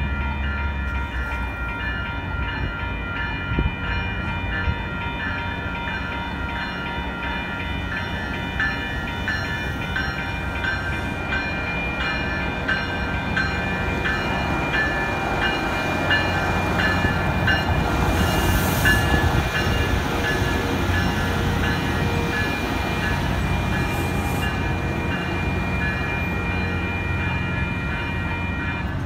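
TriMet WES diesel railcar rolling through a street grade crossing. Its engine and wheel rumble grows loudest about halfway through as it passes, while the crossing bell rings steadily about twice a second.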